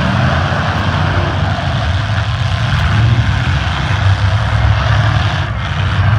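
Engines of many demolition derby cars running together, a loud, steady mechanical din.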